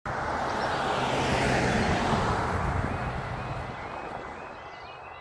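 A car passing on the road close by, its tyre and engine noise swelling and then fading away. From about halfway through, the level crossing's Clifford and Snell yodel alarm starts up, a warbling tone repeating about twice a second. It is the warning that a train is approaching and the barriers are about to come down.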